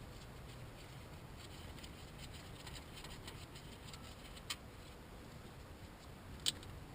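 Quiet handling of tools and engine parts: faint small ticks and scrapes, with two short sharp clicks about two seconds apart near the end.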